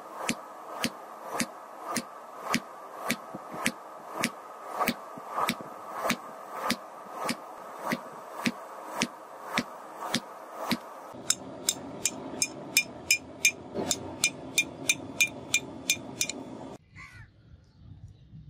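Hand-forging hammer blows on red-hot bearing steel on a steel block anvil, about two blows a second, then quicker at about three a second with a brighter ring for the last several seconds. The hammering stops abruptly a little before the end, leaving near silence.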